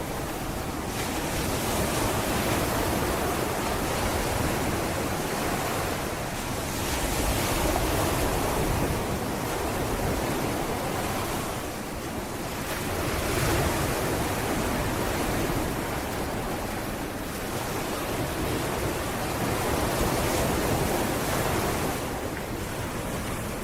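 Sea waves breaking and washing on a beach, a continuous surf hiss that swells and ebbs every few seconds, with some wind on the microphone.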